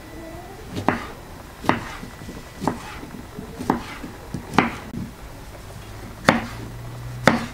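Serrated knife slicing cucumber on a wooden cutting board: the blade knocks against the board with each cut, about one cut a second, eight or so in all.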